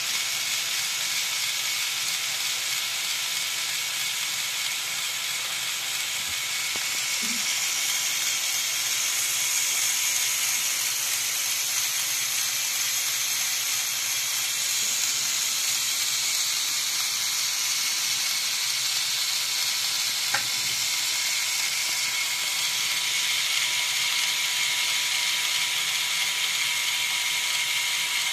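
Lego Technic 8258 crane truck's small electric motor and its modified, lower-ratio gear train whirring steadily as the crane arm moves, with one short click about twenty seconds in.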